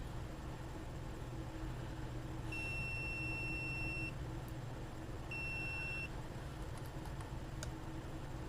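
Multimeter continuity beeper sounding twice, a steady high beep about a second and a half long and then a shorter one, as the probes are touched across the fuse, which tests good.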